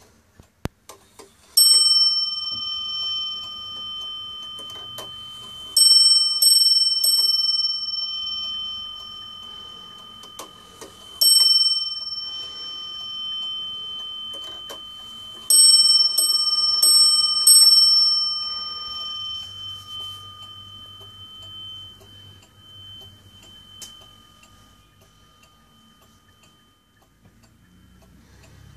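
Warmink Dutch 8-day Sallander wall clock striking on its bell as its minute hand is turned forward by hand, with its movement ticking underneath. It gives a single strike, then a run of about four, another single strike, then a run of about five, each ringing on and slowly dying away.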